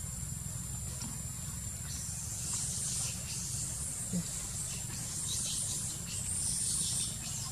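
Tropical forest ambience: a steady high-pitched insect drone over a constant low rumble, with faint scattered hissing rustles from a couple of seconds in.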